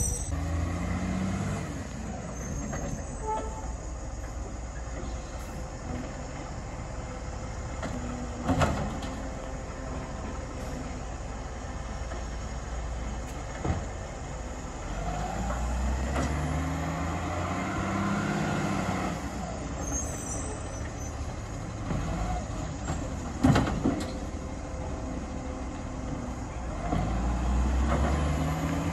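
Garbage truck engine running, revving up and down a couple of times, with a few sharp knocks.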